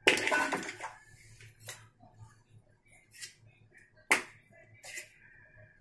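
Metal spoon clinking and scraping against a steel pot of spiced potato samosa filling as the filling is scooped. There is a short burst of handling noise at the start, then a few scattered clicks, the sharpest about four seconds in.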